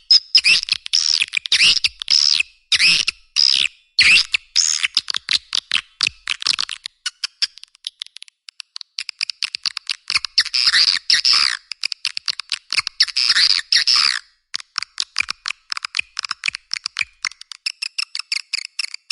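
Swiftlet lure call track: rapid trains of sharp clicks and twittering chirps from swiftlets, coming in bursts with short gaps between them, thin-sounding with no low end. A sound of this kind is played to draw swiftlets into a nesting house.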